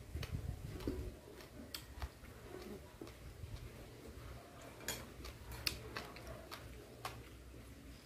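A person chewing a mouthful of boiled beef tendon and fresh herbs, with scattered sharp mouth clicks and smacks at irregular intervals.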